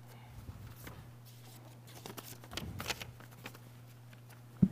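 Faint rustling of Bible pages being turned, over a steady low electrical hum, with one short sharp thump near the end.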